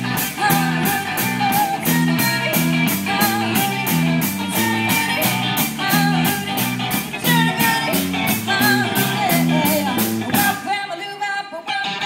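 A live band plays a rock and roll song with drums, a stepping bass line and a lead singer. Near the end the drums and bass drop out for about a second and a half, then come back in.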